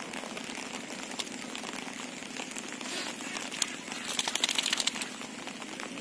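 Crackling rustle of a nylon cast net being handled, with a quick rattling run of clicks about four seconds in from the net's weighted edge.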